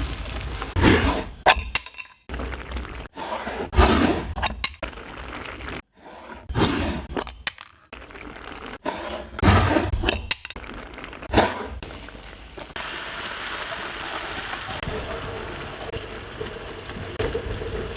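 Kitchen cooking sounds in quick cuts: knocks, clinks and clatter of utensils and dishes. From about two-thirds of the way in, a steady sizzle of frying takes over.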